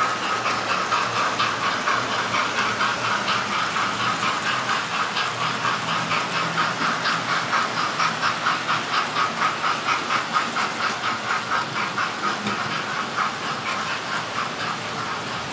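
Model railway trains running on the layout: a steady whirring rattle of small motors and wheels on track, pulsing in a regular beat about four times a second.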